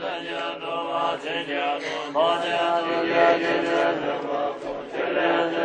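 Tibetan Buddhist monks chanting prayers: voices in long drawn-out phrases, holding steady notes.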